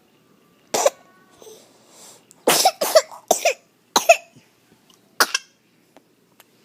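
A small child coughing: a single cough about a second in, a quick run of four or five short coughs in the middle, then a double cough near the end.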